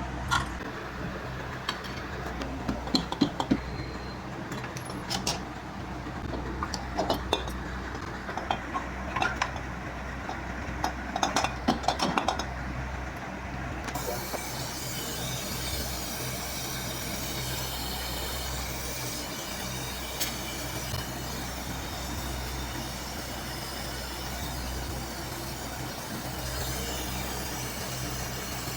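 Light metallic clinks and taps of tools or parts over a steady low hum, scattered through the first half. After about the middle the clinks stop and a steady hiss joins the hum.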